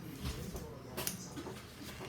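Close-miked eating sounds: chewing and mouth clicks while eating crab legs, with a sharp click about a second in.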